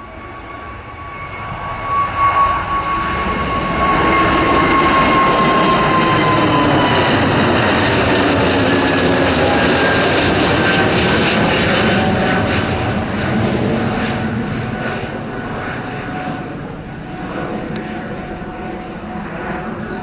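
Twin-engine jet airliner climbing out after take-off. Its engine noise swells over a couple of seconds and stays loud for several more, with a whine that drops in pitch as the aircraft passes, then slowly fades.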